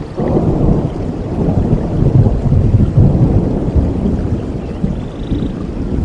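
Rolling thunder over steady rain: a long low rumble that builds from the start, is loudest about two to three seconds in, then slowly fades.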